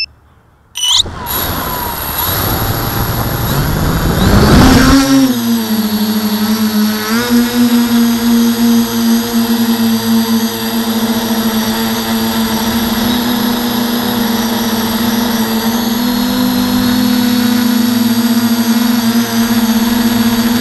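Quadcopter's electric motors and propellers spinning up about a second in, rising in pitch to takeoff at around five seconds, then a steady buzzing hum in flight with small shifts in pitch as the throttle changes. Heard close-up from the camera mounted on the quad.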